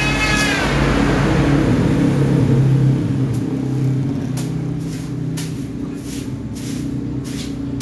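An electric hand planer is switched off, its motor whine falling in pitch and dying away over about a second, while a low hum carries on underneath. From about three seconds in, a hand sweeps wood shavings across the planed slab in a run of quick swishes, one or two a second.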